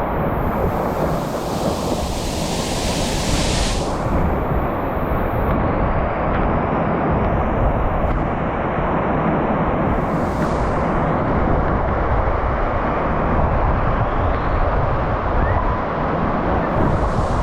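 Waterfall pouring into a plunge pool: a loud, steady rush of falling water with a deep rumble. A brighter hiss of splashing water stands out for the first few seconds.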